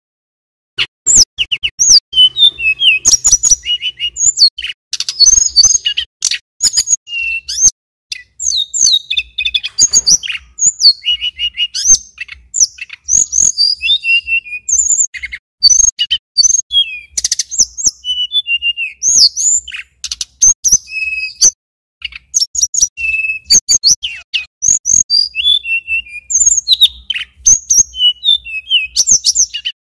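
Male tledekan gunung (sulingan gunung) songbird singing a long, rapid run of high chirps, trills and short whistled notes, starting about a second in.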